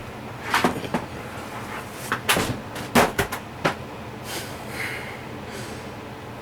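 Handling of a computer keyboard: a series of sharp plastic knocks and clicks, the loudest about three seconds in, followed by a brief soft rustle.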